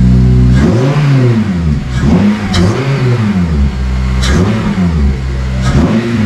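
Honda Civic FN2 Type R's 2.0-litre four-cylinder engine revved repeatedly from idle. Each blip rises and falls back within about a second, several times in a row.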